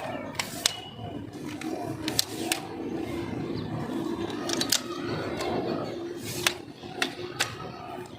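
Sharp clicks and clacks of an aluminium tripod's legs and leg locks being worked open and shut by hand, about nine irregular snaps over a faint steady hum.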